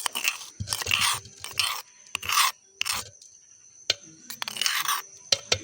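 Crushed dried red chillies being scraped out of a stone mortar: a run of short, gritty scrapes, with a few sharp clicks near the end.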